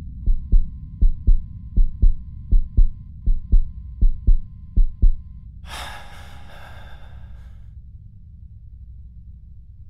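Heartbeat sound effect: seven low double thumps (lub-dub), a little under a second apart, over a steady low drone. The beats stop about five seconds in, followed by a breathy rush of noise lasting about two seconds.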